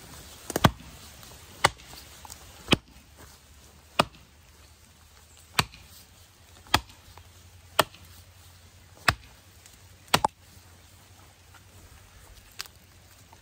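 Hults Bruk 24-inch bushcraft axe chopping into a green privet sapling: about ten sharp strikes, roughly one a second, stopping after about ten seconds, with one lighter knock near the end.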